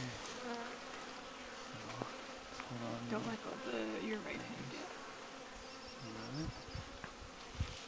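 Honeybees buzzing around a comb frame pulled from the hive, single bees droning close past with pitch rising and falling as they fly by. A short knock near the end.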